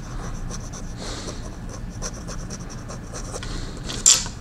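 Medium steel nib of a Lamy Safari fountain pen scratching softly across lined paper as a word is written in cursive, a run of quick small strokes. One louder short hiss comes near the end.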